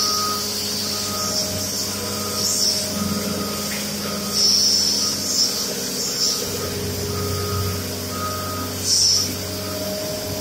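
A back-up alarm beeping steadily, about one short beep a second, over a steady machine hum. Short high hisses from a hose nozzle come and go, the longest about four seconds in.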